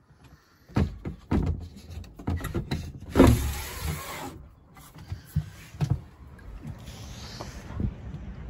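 Knocks and wooden rubbing as a sailboat's wooden companionway hatch is slid open, with a longer sliding scrape about three seconds in, followed by a few more knocks.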